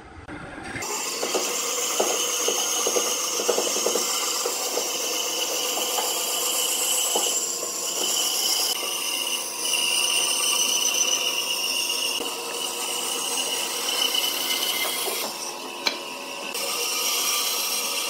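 Band saw running and cutting through a thick wooden block along a curved line, a steady whining saw noise. Near the end the cut eases off briefly, with a sharp click.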